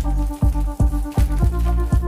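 Electronic background music with a heavy bass and a fast, steady beat, about two and a half beats a second.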